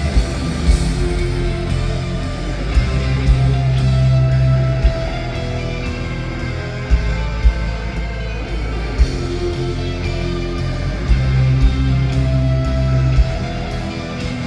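Live rock band playing an instrumental passage with no singing: guitar over sustained bass notes and a steady drum beat.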